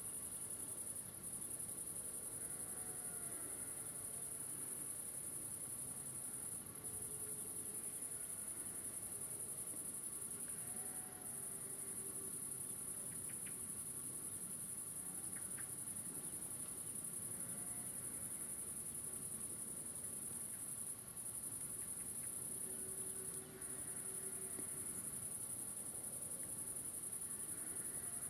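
A steady, high-pitched chorus of crickets singing without pause, with a few very brief dips.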